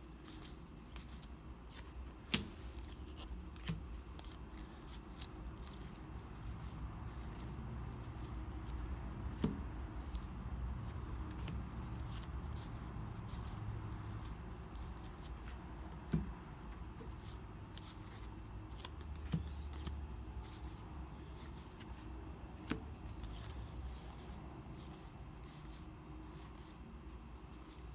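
Trading cards being handled and sorted by hand: faint sliding and rustling of card stock, with a few sharp clicks spaced several seconds apart, over a low steady hum.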